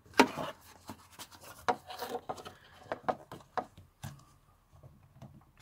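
Hands handling a flexible rubber fuel-pump access cover and its wiring on a car's floor pan: a sharp click near the start, then rubbing, scraping and small knocks that thin out after about four seconds.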